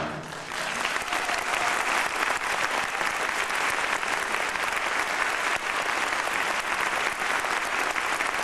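Theatre audience applauding, the clapping building within the first second and then holding steady as a dense, even patter.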